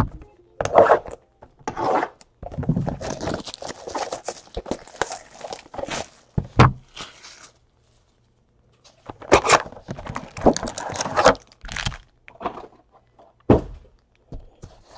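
Cardboard trading-card hobby box and its foil packs being handled on a table: rustling, tearing, crinkling and knocks of cardboard set down. There is a short pause just before the middle, and a few sharp thunks near the end.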